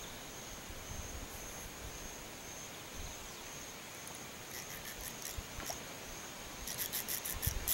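Insects trilling steadily at one high pitch. A rapid run of faint high ticks joins them about a second before the end.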